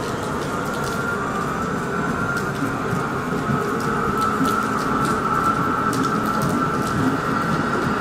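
Electric S-Bahn multiple unit pulling out of the station, its motors giving a steady whine that grows a little as it gathers speed, with rain falling.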